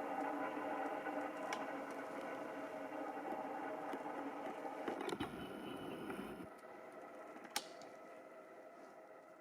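Faint four-stroke single-cylinder engine of a Honda CRF150R dirt bike running at a steady pitch and fading away, with a brief rougher burst of noise about five seconds in and a single sharp click shortly after.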